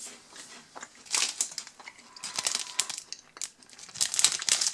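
Plastic candy-bar wrapper crinkling as it is handled, in three short rustling spells about a second in, around two and a half seconds in, and near the end.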